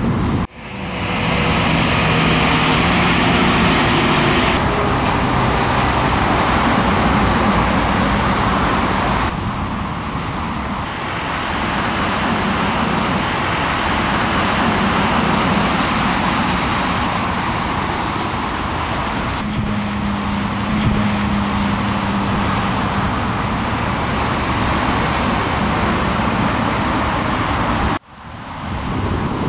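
Motorway traffic passing at speed, trucks and cars: steady tyre noise with the low drone of a lorry's engine in stretches. The sound breaks off sharply twice, near the start and near the end.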